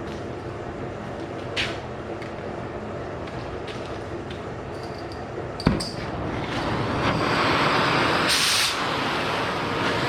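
A steady machine hum with a single sharp click about halfway through, then a loud rushing hiss that builds from about six seconds in, the sound of metal being cut or gouged during a weld repair.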